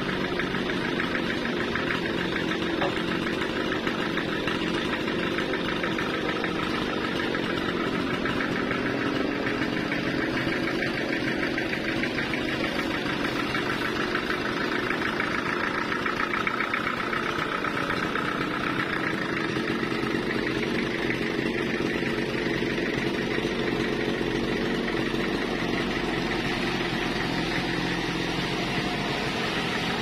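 Multi-cylinder diesel engine that powers a sawmill's band saw, running steadily at an even speed.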